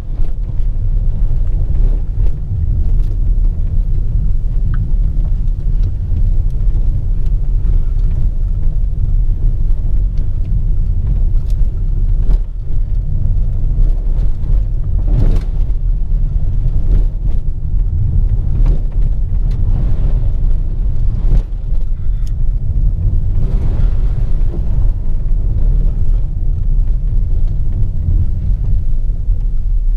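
Volvo XC40 T5 AWD being driven: a steady, loud low rumble of the car in motion, with a few sharp knocks along the way.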